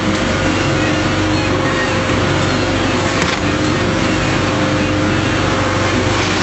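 Boat motor running steadily at speed, a constant drone under the noise of spray and water splashing against the hull.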